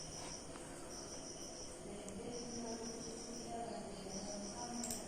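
Faint insect chirping: a high, pulsing trill repeated about five times, each trill lasting under a second.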